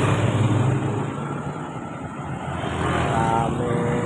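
Road traffic passing close by: the low rumble of a tank truck pulling away fades over the first second, then a car and approaching motorcycles run on. A short steady tone sounds near the end.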